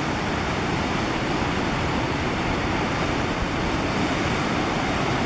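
Steady rushing noise of surf on the shore, with no other distinct sound.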